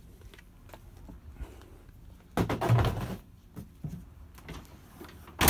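Gear and plastic fuel cans being handled in a pickup truck bed: one loud scraping knock about two and a half seconds in, a few small clicks after it, and a sharp click near the end.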